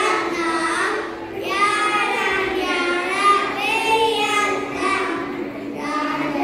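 A group of children singing a song together through stage microphones in a hall, with a steady held note sounding underneath the voices.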